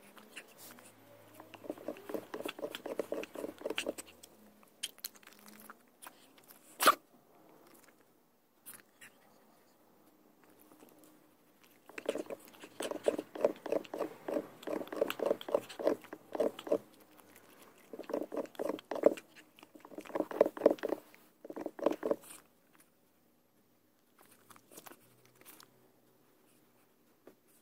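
A pug making runs of quick, rhythmic mouth noises, about four or five a second, in several bouts. There is one sharp click about seven seconds in.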